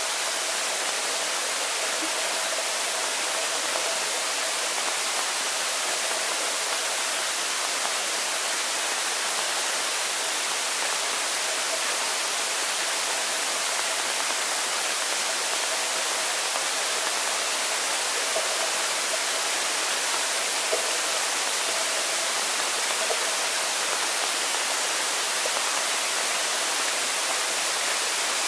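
Steady hiss of underwater swimming-pool ambience picked up by an action camera's microphone while submerged, with a faint steady tone in the background.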